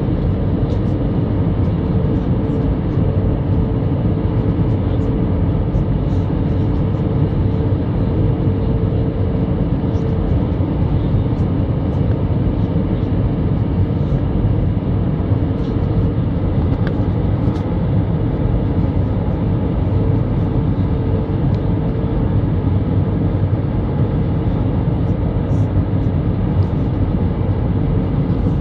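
Airbus A320 cabin noise during the descent to landing: the steady rumble of the engines and rushing air heard from inside the cabin, with a steady hum running through it that fades in and out.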